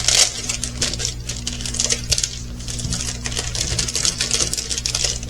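Small plastic bags of resin diamond-painting drills being handled, the tiny beads rattling and clicking against each other in quick, irregular runs.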